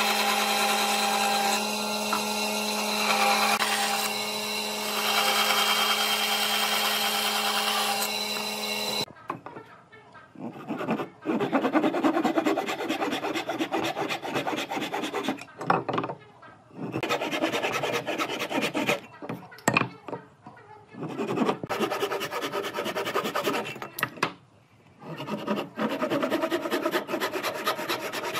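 A power tool's motor runs steadily with a held whine, then stops abruptly about nine seconds in. After that comes rasping and scraping on wood, in spells of strokes broken by short pauses.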